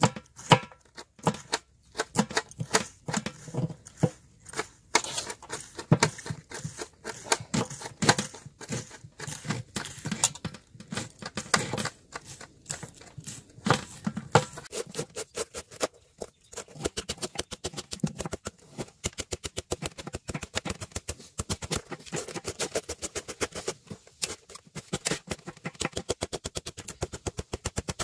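Knives chopping cabbage on a large metal plate: sharp knocks of the blades through the leaves onto the metal. The strokes come irregularly from several hands at first, then past the middle settle into a fast, even rhythm of rapid chopping.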